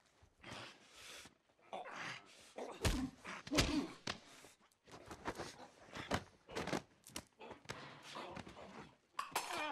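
Hand-to-hand struggle on the floor: scuffling of bodies and clothing with strained, choked breathing from a man held in a chokehold, and two heavy thumps about three seconds in.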